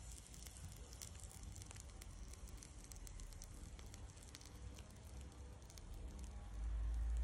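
Meat grilling over a charcoal fire: faint crackling and sizzling with scattered small pops. A low rumble swells near the end.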